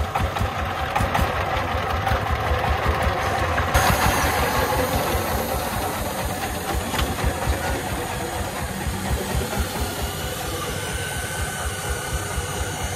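A công nông three-wheeled dump truck's 24-horsepower single-cylinder diesel engine runs with a rapid, even beat while the hydraulic ram tips the bed to dump its load. About four seconds in, a rushing hiss joins as the sand slides out of the bed.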